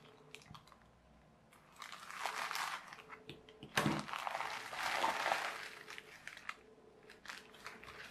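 Plastic mailing pouch and the plastic wrapping inside it crinkling in irregular bursts as they are opened and handled, with one sharp click a little before the middle.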